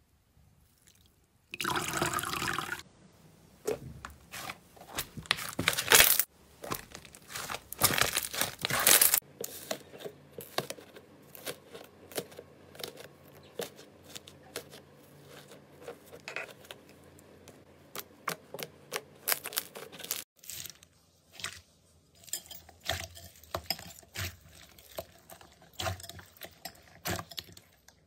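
Hands squeezing a sponge soaked in green liquid slime, in several loud wet bursts. Then fingers kneading fluffy cloud slime with a quieter stream of small clicks, and from about twenty seconds in, slime full of foam beads pressed with many short sharp clicks.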